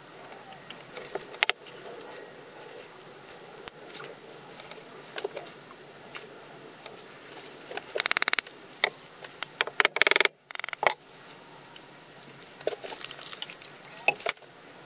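Hands handling a knife and small items on a workbench: scattered light clicks and knocks, with two short bursts of quick rattling clicks about eight and ten seconds in, the second the loudest.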